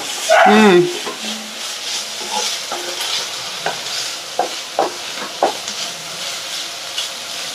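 Wooden spatula stirring and scraping minced mutton in a non-stick frying pan, with steady sizzling as the mince fries until its liquid cooks off, and a string of light knocks of the spatula against the pan. A short voice sound just after the start.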